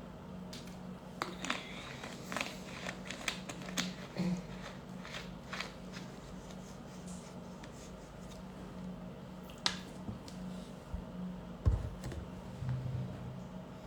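Scattered light clicks and taps, a quick run of them in the first few seconds, then one sharper click and a low thump later on, over a steady low hum.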